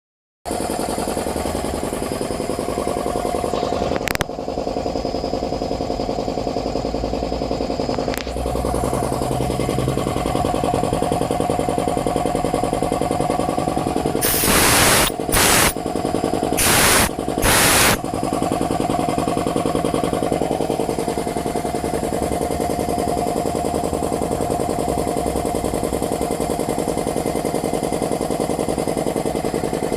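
3090 piston air compressor running steadily with a rapid, even knocking pulse. Between about 14 and 18 seconds in, four loud bursts of hissing air break over it.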